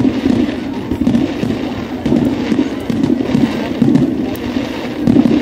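Aerial fireworks shells bursting one after another in a dense, continuous run of booms, with some crackle among them.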